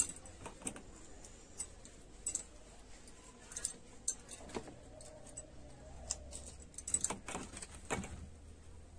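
Irregular light clicks and jingles of bangles and fingers against steel plates as slit okra pods are stuffed with spice paste by hand, with a sharper click right at the start.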